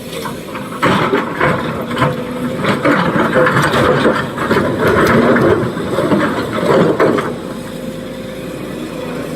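SANY SY225 hydraulic excavator running steadily at a quarry face. From about a second in until about seven seconds, it is overlaid by louder clattering and knocking, typical of the bucket working rock while a truck is loaded.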